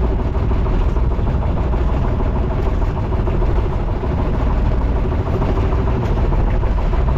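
Outrigger fishing boat's engine running steadily, a constant drone with wind and water rushing past the hull.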